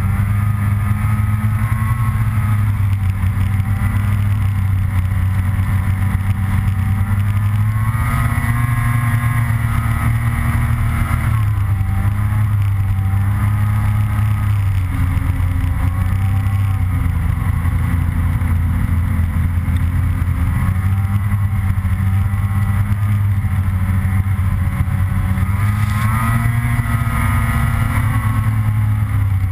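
Snowmobile engine running at trail speed, heard from on the moving sled. Its pitch rises and falls as the throttle changes.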